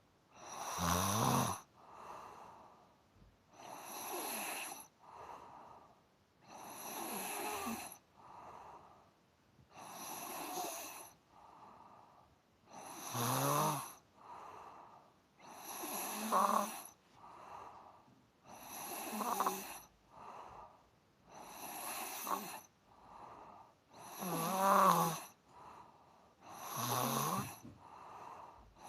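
A person snoring in a steady rhythm: a loud snore about every three seconds, each followed by a softer breath.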